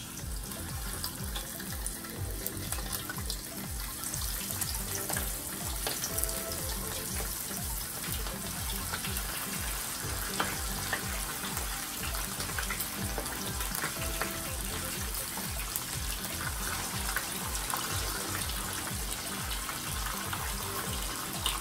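Pieces of cornstarch-dusted red snapper frying in a pan of hot oil: a steady sizzle that builds over the first few seconds as the fish goes in, with a few brief pops. Background music with a steady beat plays underneath.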